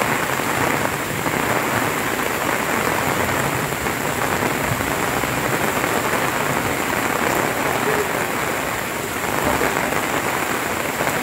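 Heavy rain pouring down steadily, mixed with the rush of muddy floodwater running down the street.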